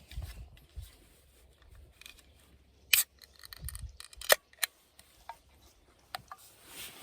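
A few sharp clicks and snaps of something being handled, the loudest about three seconds in and another just after four seconds, with fainter ones following.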